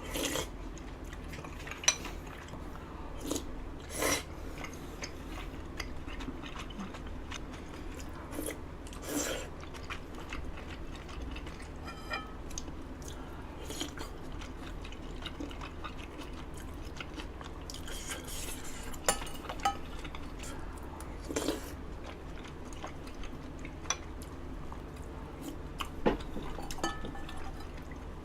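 Quiet eating sounds: soft chewing with scattered clicks and knocks of utensils against dishes, over a steady low hum.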